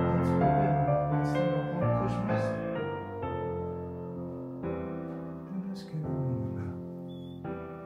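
Slow solo piano music, notes ringing out one after another and growing quieter toward the end.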